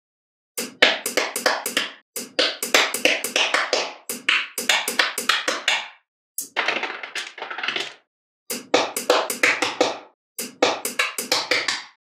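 Small magnetic balls clicking and rattling against each other as hands press rows and layers of them onto a block. About six runs of rapid clicks, each broken off by a short silence.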